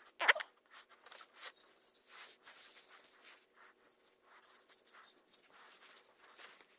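Hand-cranked chain breaker being screwed down on a go-kart roller chain, pressing a link pin out: faint metal clicks and scraping from the turning handle and chain, with one sharper click at the start.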